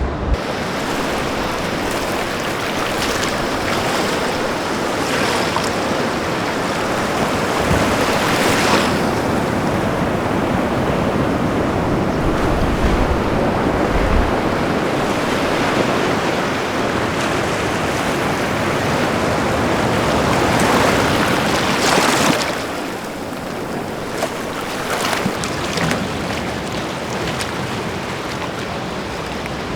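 Sea waves breaking and washing on a shore: a continuous rush of surf that swells louder twice, about a third of the way in and again about three quarters through, with occasional low wind buffets on the microphone.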